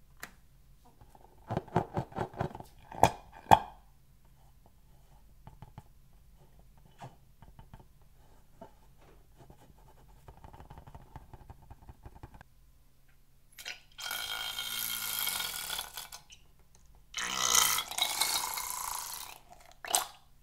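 Slime-filled rubber balloons being handled, squeaking against fingers in a few short bursts early on. Near the end come two longer squelching, squealing bursts of a couple of seconds each as slime is squeezed out of a cut balloon.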